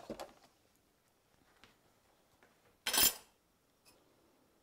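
Kitchen dishes and utensils being handled at the counter: a couple of light knocks at the start and one louder, sharp clatter about three seconds in.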